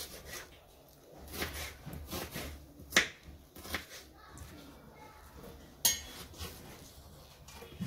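A kitchen knife cutting onion on a wooden cutting board: a few separate sharp knocks of the blade on the board, the loudest about three seconds in and just before six seconds.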